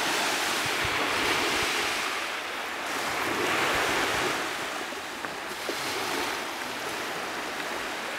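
Small waves washing onto a sandy beach, the hiss of the wash swelling and easing twice.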